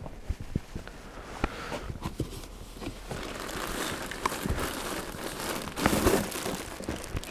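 Plastic packaging crinkling and rustling as it is handled, with scattered light knocks; loudest about six seconds in.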